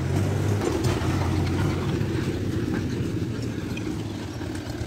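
Tractor's diesel engine running steadily, a low drone. The tractor is pulling a trailer.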